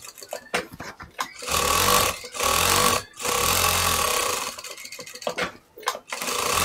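Jack industrial straight-stitch sewing machine stitching in short runs of about a second, stopping and starting, with small handling clicks between runs while the fabric is repositioned. It is sewing a securing seam along the edge to fix the fabric to its stabiliser.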